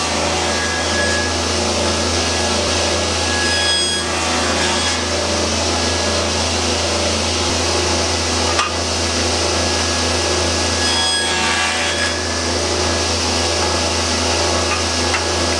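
Table saw with a flat-top blade running steadily while hardwood is fed through it in repeated passes to cut a wide, flat-bottomed groove.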